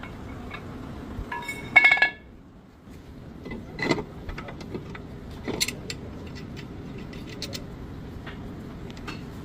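Metal tools or brake parts being handled: one loud ringing metal clink about two seconds in, followed by scattered lighter clicks and taps.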